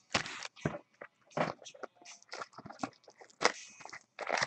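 Foil-wrapped trading-card packs crinkling and rustling as they are handled, in short irregular bursts, the loudest about three and a half seconds in.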